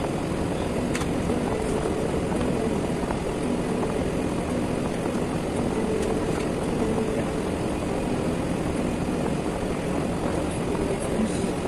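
Steady droning machine noise with a low hum.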